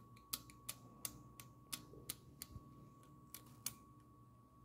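A quick run of sharp hard-plastic clicks and taps, about three a second, as a small plastic toy figure and its crystal cap are handled; they stop shortly before the end. A faint steady high whine runs underneath.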